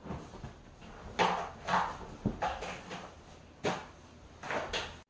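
Cloth wiping and rubbing over a leather sofa while its cushions are handled: a run of short swishing rubs, with a single knock a little after two seconds in.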